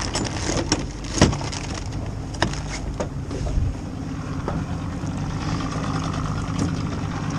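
Yamaha 60 outboard motor running steadily. A few sharp knocks come over it, the loudest about a second in.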